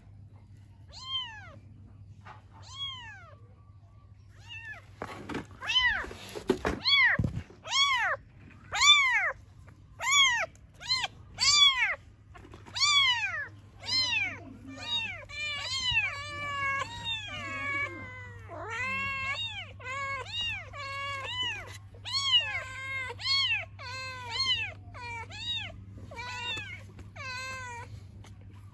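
A young kitten meowing over and over in high, thin, wailing cries, the distress calls of a kitten left without its mother. The cries come slowly at first, then crowd together and overlap in the second half. A few short scuffing noises come about five to seven seconds in.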